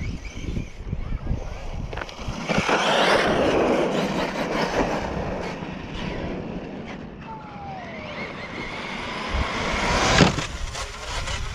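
Electric RC monster truck running, its motor and tyres on asphalt swelling to a loud rush twice, with a sharp knock about ten seconds in.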